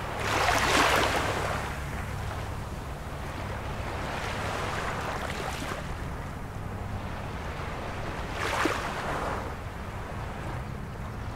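Ocean surf: a steady wash of waves with a swell about a second in and another late on, over a steady low rumble.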